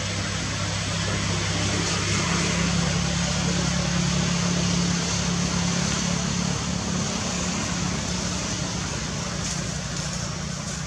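An engine running steadily: a low hum under an even hiss, a little louder a few seconds in.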